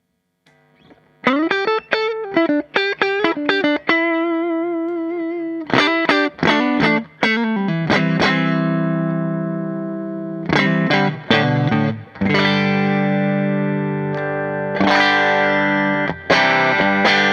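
Electric guitar, a Stratocaster, played through the AmS Hurricane 40, a tube amp head powered by four 6V6 tubes: picked single-note phrases with a bend and vibrato, then ringing, sustained chords, after about a second of near silence.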